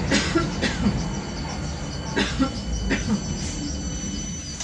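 BKM-62103 tram running along the track, heard from inside the car by the doors: a steady low rumble broken by about four sharp knocks.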